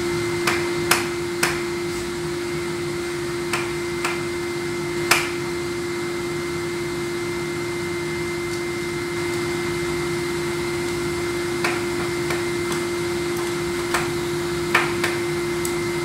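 Vacuum cleaner running steadily with a constant hum. A cat's paw swatting the plastic hose end makes about a dozen sharp knocks, most in the first five seconds and again near the end.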